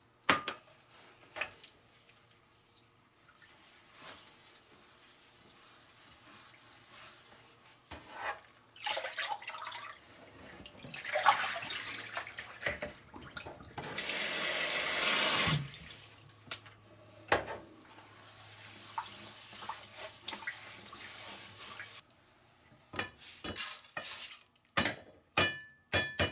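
Rice being rinsed in a stainless steel mesh sieve in a bowl of water in a kitchen sink: water sloshing and splashing, with the tap running hard for a second or two midway. Near the end a few sharp clicks and short ringing knocks of metal and glass.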